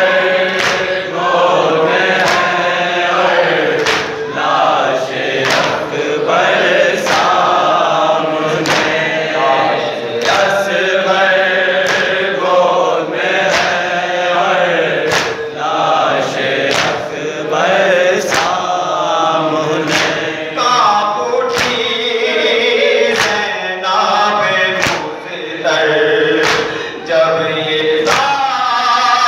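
Live noha, a Shia lament: a male reciter sings into a microphone with a group of men chanting along. Sharp chest-beating slaps (matam) keep time about once a second.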